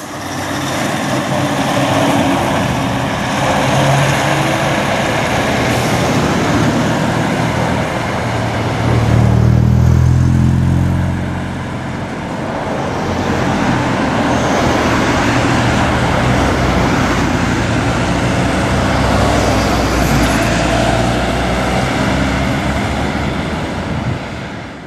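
Scania R580 V8 diesel truck engine running on the road amid traffic noise. It swells loudest about nine to eleven seconds in, then eases off.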